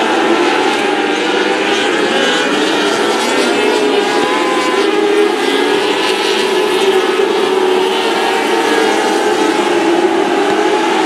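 Engines of several small open-wheel dirt-track race cars running at high revs, several pitches overlapping and wavering up and down as the cars go round the oval.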